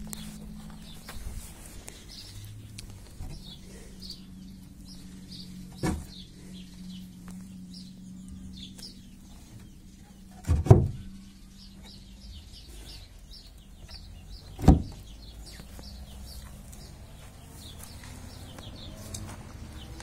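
Wooden knocks from the doors of a pine cabinet being opened and shut by hand, three times: about six seconds in, a loud double knock near eleven seconds, and again near fifteen seconds. Small birds chirp repeatedly in the background over a low steady hum.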